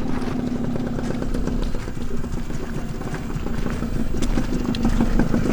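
Motorcycle engine running steadily with an even, rapid pulse, a little louder near the end.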